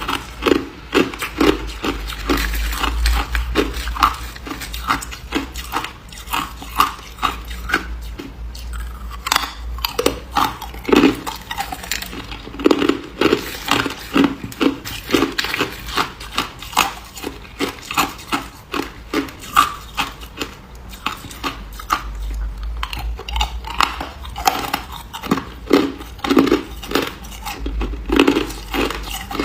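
A person biting and chewing ice, close to the microphone: a continuous run of sharp crunches, about two to three a second, as the ice cracks between the teeth.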